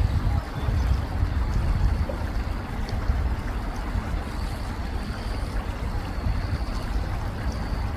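Shallow river water running and rippling over stones, a steady rush, with wind rumbling on the microphone.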